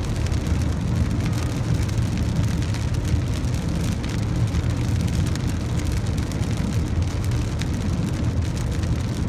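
Steady cabin noise of a car driving on a wet highway in the rain: a low rumble of engine and tyres on the wet road, mixed with rain hitting the car.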